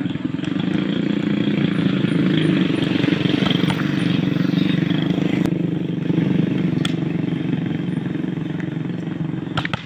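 A motorcycle engine running close by, swelling about a second in and slowly fading again, with a few sharp knocks over it.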